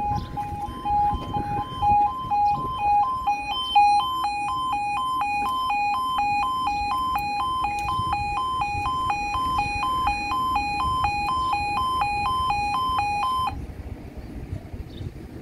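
UK level crossing yodel alarm sounding its two-tone warble as the barriers lower. It switches to a faster alternation about four seconds in and stops suddenly near the end.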